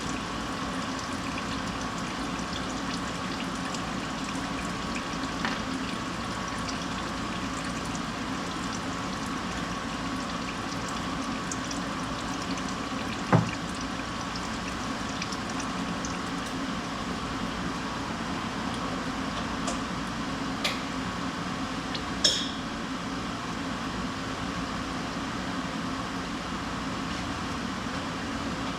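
Engine oil running in a steady stream during an oil change, with a sharp metallic click about halfway through and two lighter clinks a little later.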